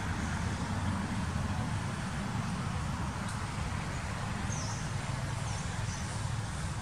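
Steady low rumble of outdoor background noise, with a few brief faint high chirps about two-thirds of the way through.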